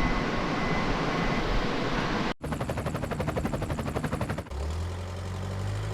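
Vehicle and machine noise in three abruptly cut pieces: a steady rumble, then a fast even pulsing for about two seconds, then an engine idling with a steady low hum.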